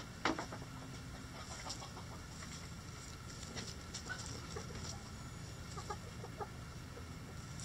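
Backyard hens clucking softly now and then while foraging, with two sharp taps close together right at the start.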